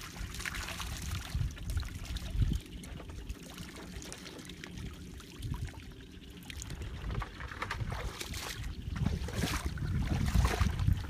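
Water splashing and trickling over a steady low rumble.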